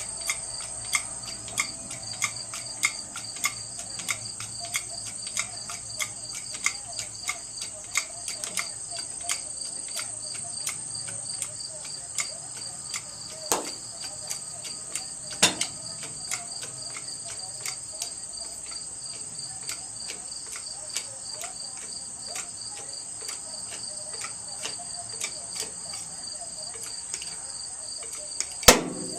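Crickets chirping steadily in a high, unbroken trill, with sharp clicks ticking about twice a second throughout and a few louder knocks, one near the end.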